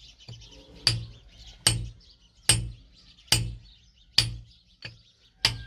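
Hammer blows breaking out the base of an old hand pump so it can be removed: seven sharp strikes at a steady pace, about one every 0.8 seconds, the second-to-last one weaker.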